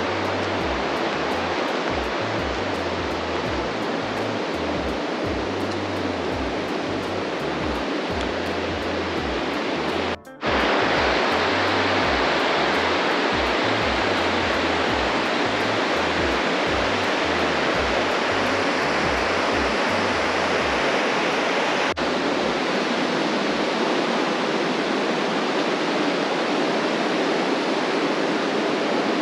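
Waterfall rushing: a steady, loud roar of falling water. It drops out for an instant about ten seconds in and comes back a little louder.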